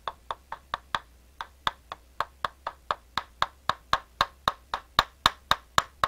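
Hammer rapidly tapping a brass tube set over an electric motor's shaft, driving the end bell down into place. The sharp metal taps come about four a second, with a brief pause about a second in, and grow louder toward the end.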